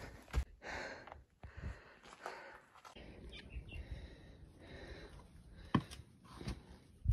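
Irregular footsteps of a hiker on sandstone rock and gritty sand, with a few sharper scuffs and knocks.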